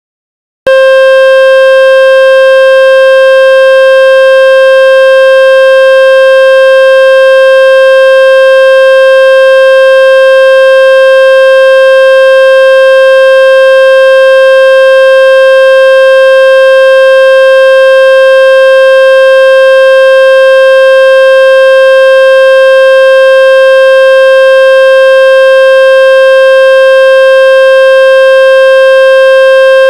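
Electronic speaker-cleaning test tone: a single loud, buzzy tone that starts under a second in and holds one unchanging pitch throughout, meant to shake water and dust out of a phone speaker or earphones.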